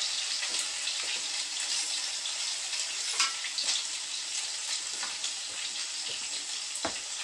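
Egg-dipped French toast sticks frying in hot oil in a cast iron skillet: a steady sizzle with scattered crackles and pops.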